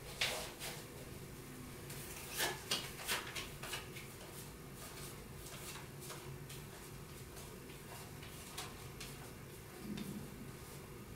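Playing cards being taken from a stack and laid down one by one on a cloth-covered table: a few sharp clicks and taps in the first three seconds or so, then only soft, faint handling sounds.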